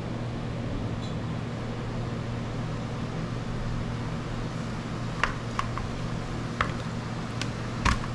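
Steady machine hum, with about five short sharp clicks in the second half as a kitchen knife scoring a whole fish taps against the metal tray beneath it.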